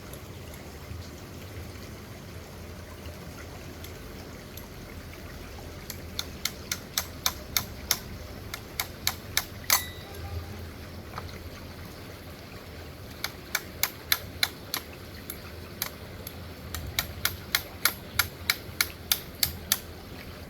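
Runs of sharp, evenly spaced clicks, about three a second, coming in three bursts over a low steady hum.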